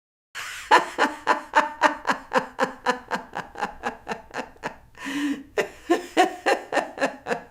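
Old woman laughing: a long run of rhythmic 'ha-ha' bursts, about four a second, broken about five seconds in by a drawn breath, then a second run of laughter.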